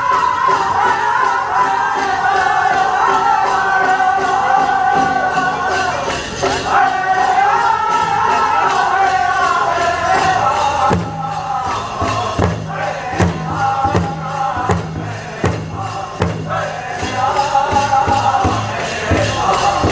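Powwow drum group singing a prairie chicken dance song in high voices over steady beats on the big drum, with the jingling of dancers' bells. The singing drops back for a few seconds past the middle, leaving the drumbeats loudest, then comes in again.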